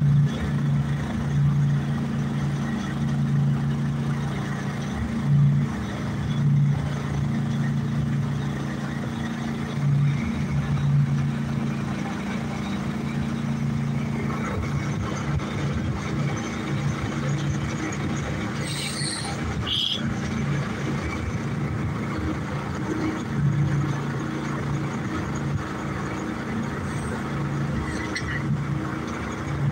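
Engine on a bowfishing boat running steadily: a continuous low hum with a slight throb.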